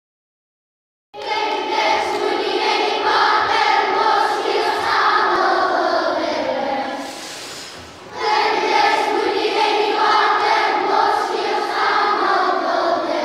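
A large group of young schoolchildren singing a song together. The singing starts about a second in, eases off briefly around the middle, then picks up again.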